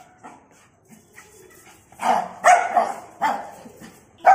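Shih tzu puppy barking: about two quiet seconds, then a run of three or four short, high barks in the second half.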